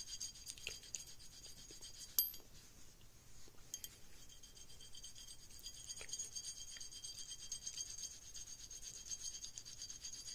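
Copper penny rubbed back and forth along a blued steel rifle barrel, a faint scratchy rubbing with a few light clicks, working off surface rust without harming the harder bluing. A faint steady high-pitched whine runs behind it.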